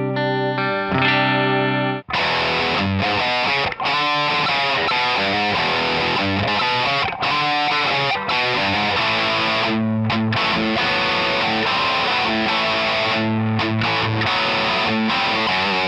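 Gibson SG electric guitar played through a distorted amp: a chord rings out, then, about two seconds in, gives way to a fast run of picked notes and riffs.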